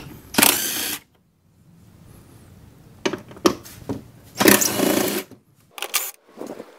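DeWalt cordless impact driver hammering in two short bursts, about half a second in and again about four and a half seconds in, spinning out the bolts that hold the wiper motor and linkage assembly. A few sharp clicks fall between the bursts.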